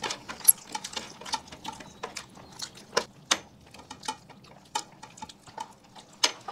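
People eating: irregular wet smacking and clicking of chewing, several a second, with a few sharper, louder clicks.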